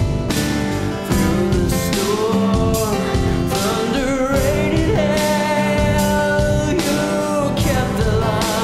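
Background music: a song with a singer's voice carrying a gliding melody over instrumental accompaniment.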